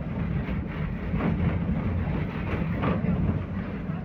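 Belkommunmash AKSM-60102 tram in motion, heard from inside the car: a steady rumble of wheels on rails and running gear, with a couple of brighter rattles about one and three seconds in.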